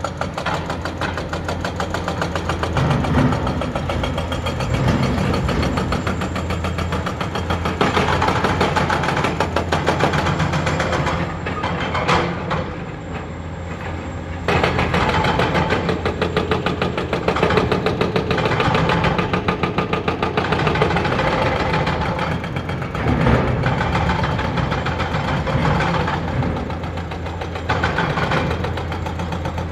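Excavator-mounted hydraulic breaker hammering rock in fast, even strokes, over the running diesel engines of several excavators, including a Hitachi 470LC digging. The hammering pauses for about three seconds near the middle, leaving the engines, then starts again.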